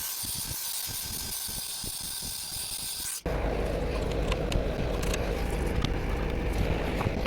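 Small handheld vacuum cleaner running steadily with a high hiss, sucking dust from the RV air conditioner's coils. About three seconds in it cuts to a low rumble with scattered sharp clicks.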